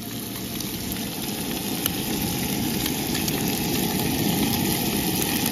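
Bacon sizzling in a cast iron skillet: a steady hiss with many small pops and crackles of spitting fat, growing louder over the first few seconds.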